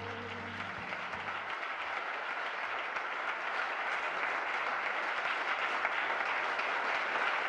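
Audience applauding, the clapping growing steadily louder, as the last notes of soft music die away in the first second or so.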